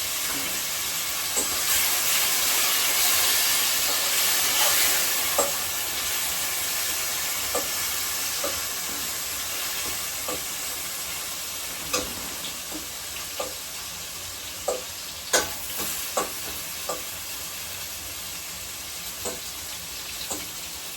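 Beef and curry chicken sizzling in hot oil in pots, a steady frying hiss that eases a little after the first few seconds. A utensil knocks and scrapes against a pot now and then as the meat is stirred.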